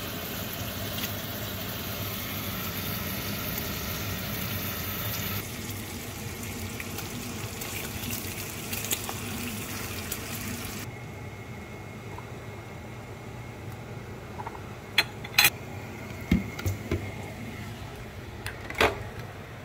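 Pancake batter and then bacon sizzling in frying pans, a steady hiss. After that comes a quieter steady background with a faint high whine and several sharp clicks and knocks, the last loud one near the end.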